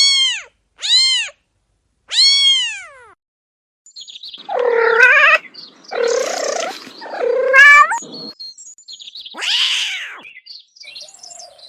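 A kitten meowing: three short, high, arching meows in quick succession. After a brief pause come longer, wavering cat calls and one final meow.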